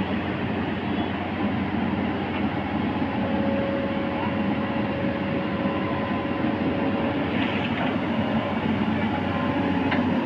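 Tata Hitachi tracked excavator's diesel engine running steadily under load as the machine works its boom and drives down off a low-bed trailer, with a thin steady whine from about three to seven seconds in and a few faint knocks near the end.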